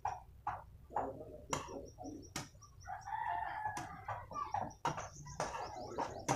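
A metal spoon scrapes and knocks irregularly against a steel pan as a coconut-and-sugar mixture is stirred. A chicken calls in the background, most clearly about three seconds in.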